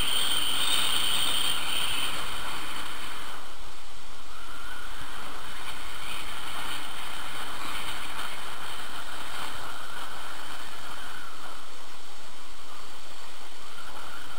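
Steady rush of wind over a skier's camera microphone mixed with skis sliding on packed snow; the upper hiss thins out a few seconds in.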